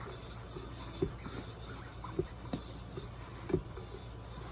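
Bicycle pump being worked in strokes about once a second, each with a soft hiss of air and a light knock, inflating a mountain bike inner tube.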